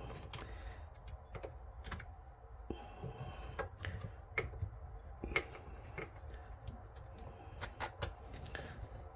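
Faint handling noise of PTFE tape being wrapped by hand around a shutoff valve's threads: scattered light clicks and ticks, with a brief rustle about three seconds in.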